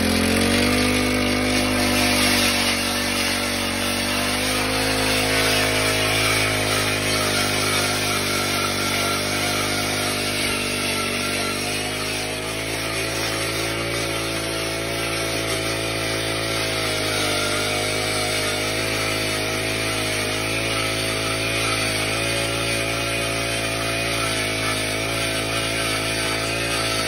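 Gas-powered ice auger's small engine running at high revs as the auger bores through lake ice, the pitch wavering slightly as the load changes. It revs up in the first second, then holds steady.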